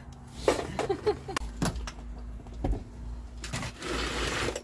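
Handling noises from working on a diesel heater's fuel line inside a van: a few sharp clicks and knocks, then about a second of rustling scrape near the end as the hose is handled against the carpeted side panel.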